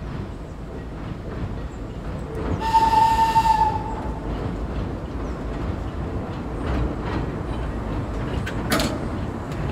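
Replica steam-type locomotive of a small tourist mine train running toward the listener, with a steady low rumble from the wheels on the track. About three seconds in it sounds one whistle blast, a single steady note about a second long; a sharp clack comes near the end.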